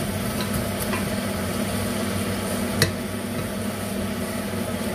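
Onions sizzling in the hot oil left from frying beef, stirred in the pan, with a sharp utensil knock about three seconds in.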